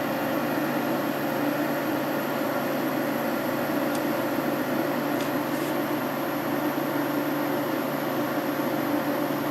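5000 BTU Kenmore by Whirlpool window air conditioner with a Matsushita compressor running steadily on cool: the fan's even rush of air over a low, constant compressor hum.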